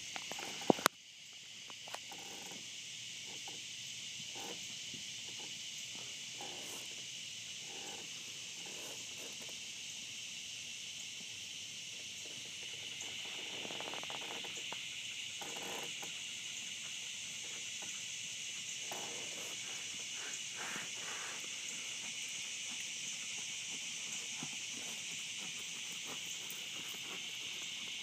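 Continuous high-pitched chorus of crickets and other insects, steady throughout. A couple of sharp knocks about a second in, and faint soft thuds now and then beneath the chorus.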